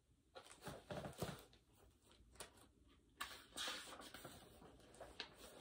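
Faint rustling and light taps of a hardcover picture book being handled and its page turned, in several short bursts.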